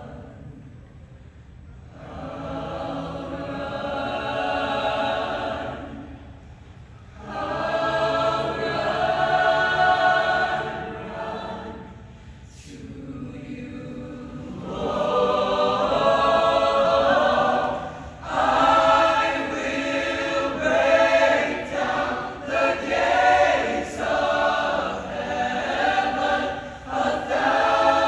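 Show choir singing in harmony: long, swelling chords in phrases with short breaks between them, then shorter, choppier notes in the second half.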